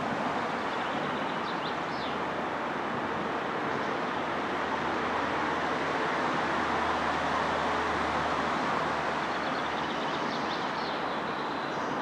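Steady hum of distant traffic, with a low rumble swelling in the middle as a heavier vehicle passes. Small birds chirp briefly about one and a half seconds in and again near the end.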